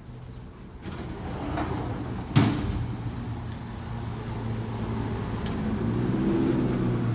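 An electric woodworking power tool's motor running with a steady hum that comes in about a second in and slowly grows louder, with one sharp knock about two and a half seconds in and a few faint clicks.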